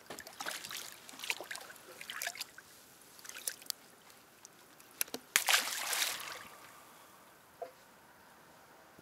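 Water splashing and sloshing in irregular bursts as a small striped bass on the line thrashes at the surface beside the boat hull. The loudest splash comes a little past halfway.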